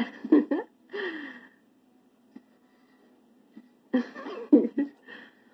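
Short wordless vocal sounds: a few quick bursts, a falling 'oh'-like cry about a second in, then another cluster of vocal sounds near the end, over a faint steady low hum.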